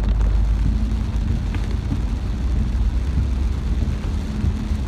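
Car driving on a wet road, heard from inside the cabin: a steady low engine and road rumble.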